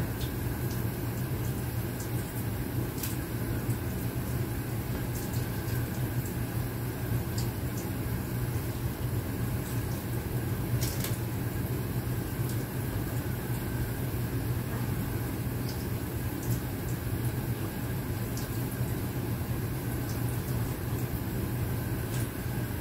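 Kitchen faucet running steadily into a sink as greens are rinsed by hand under the stream, with a few faint clicks and a steady low hum beneath.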